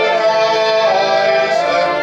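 Music: a melodic piece of held, sustained notes that change pitch slowly.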